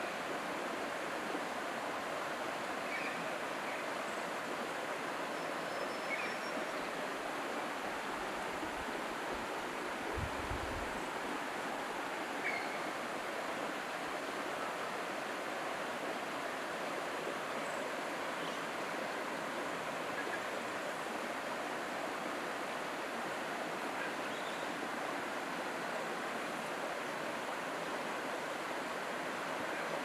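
Running water of a stream in the valley below: a steady, even rushing hiss.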